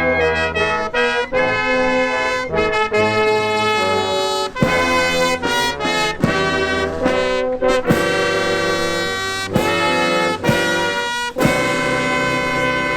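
Brass music: trumpets and trombones playing sustained chords, with a sharp strike every few seconds.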